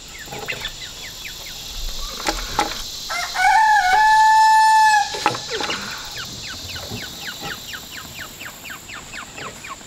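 A rooster crows once near the middle, one call held for nearly two seconds and the loudest sound here. Behind it, short high chirps from other birds repeat quickly throughout.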